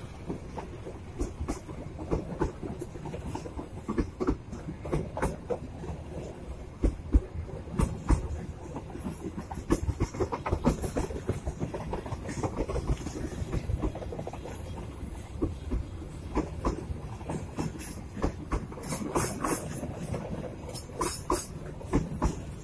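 Indonesian Railways (KAI) passenger coaches rolling past: a continuous rumble with the wheels clacking over the rail joints.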